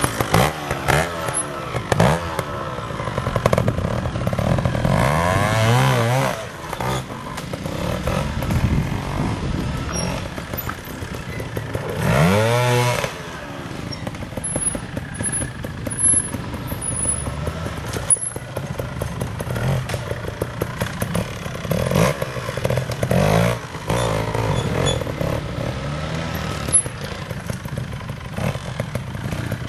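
Trials motorcycle engine revving up and down in short bursts of throttle, strongest about twelve seconds in, with occasional sharp knocks.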